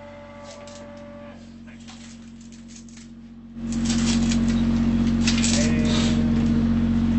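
A machine starts up suddenly a little past halfway and runs on with a steady low hum. Before it, only a few faint clicks.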